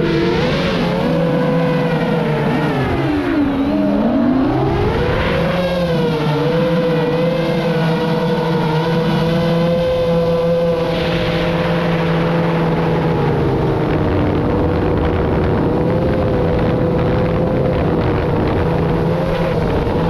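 FPV quadcopter's motors and propellers whining in flight, the pitch dropping sharply about three seconds in as the throttle eases, then climbing back and holding fairly steady, over a rush of wind.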